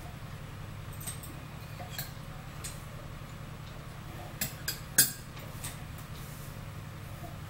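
Metal spoons clinking against ceramic mugs while stirring: scattered light clinks, with a few close together around four and a half to five and a half seconds in, the loudest about five seconds in. A steady low hum runs underneath.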